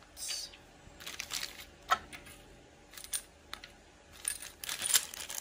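Small plastic bobbins and metal sewing-machine accessories clicking and clinking as they are picked up and handled on a wooden table, with one sharper, ringing clink about two seconds in. A plastic parts bag rustles lightly.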